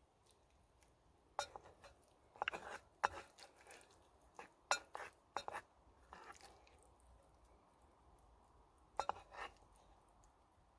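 Cooking utensils clinking and scraping against metal camp cookware, in a handful of short, sharp clicks and scrapes spread across a few seconds.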